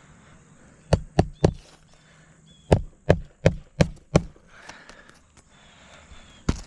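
Hammer driving roofing nails by hand into asphalt shingles: three quick strikes, a pause, then a run of five strikes, and one more near the end.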